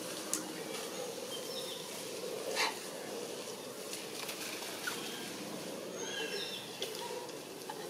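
Forest ambience: a steady low hum with a few soft clicks, and a short run of high, thin chirps about six seconds in.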